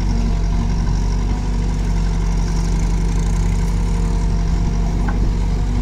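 Diesel engines of a JCB backhoe loader and a tractor running steadily, with the backhoe working its hydraulics as it digs and lifts a bucket of soil.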